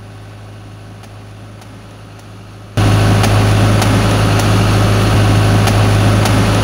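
An engine idling steadily with a low hum. It suddenly becomes much louder a little under three seconds in and then runs on steadily.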